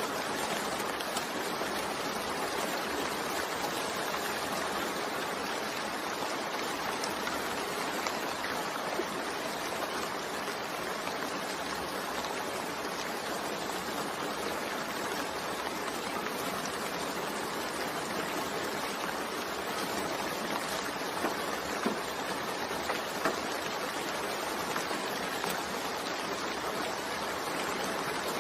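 Steady rain falling, an even hiss with a few slightly louder drop ticks about three quarters of the way through.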